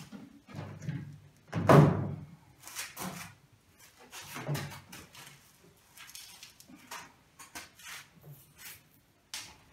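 Knocks and thuds of a home-built roller-coaster car's body being set onto its wheeled frame on the rails and shifted into place, with one loud thud about two seconds in and smaller clunks after.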